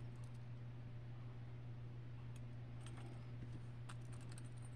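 Faint, scattered small metallic clicks and ticks as jewelry pliers grip and work open a thick metal jump ring, over a steady low hum.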